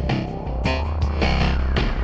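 Intro music with a heavy, sustained bass and a steady beat, about two hits a second.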